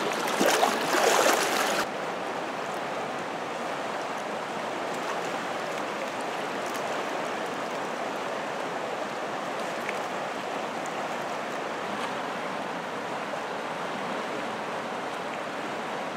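Water splashing around a steelhead as it is let go from a hand in shallow river water, stopping suddenly about two seconds in. Then the steady rush of river current.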